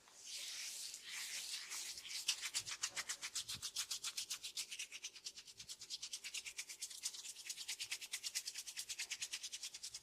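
Hands rubbing over a person's hair and scalp in a barber's head massage. A short rub comes first, then from about a second and a half in a fast, even rubbing of about eight strokes a second.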